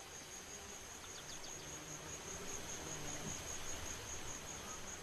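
Insects trilling: one steady, high-pitched trill with a faint even pulse, over a soft background hiss.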